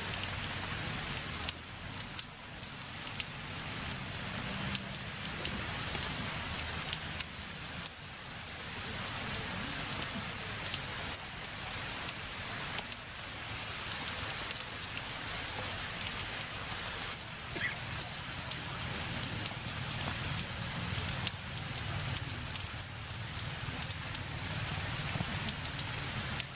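Heavy rain falling steadily: a dense, even hiss peppered with many small drop hits.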